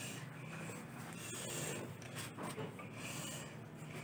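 Hands handling a Massive GTX 122 car subwoofer, turning it over and sliding it on cardboard: rubbing and scraping with a few small knocks.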